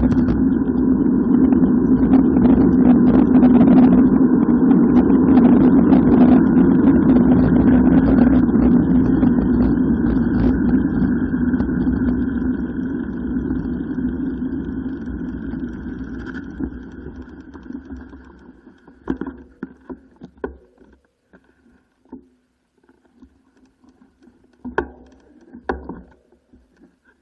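Wind rush and tyre noise on a bicycle-mounted action camera during a fast downhill ride, a loud steady rumble that fades away over several seconds from about twelve seconds in. After that come a few scattered clicks and knocks.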